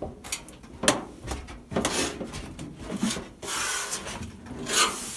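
Plastic back cover of a plasma TV being worked loose by hand: scraping and rubbing with scattered knocks and clicks, the cover still held by one missed screw.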